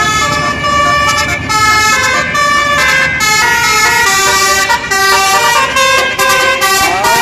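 Bus telolet horn, a set of multi-trumpet basuri air horns, playing a tune: loud held notes that step up and down in pitch several times a second, with a rising slide near the end, over the bus's engine and road noise.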